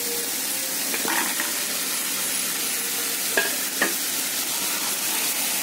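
Onion-tomato masala sizzling in a nonstick frying pan as fried idli cubes are tipped in and stirred with a spatula, with a few light knocks about a second in and again near four seconds.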